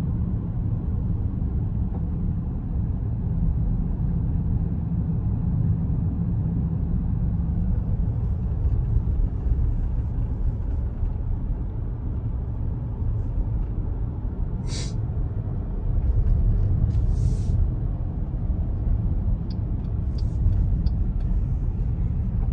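Steady low rumble of road and engine noise inside a moving car's cabin. Two brief, higher-pitched noises come over it about 15 and 17 seconds in.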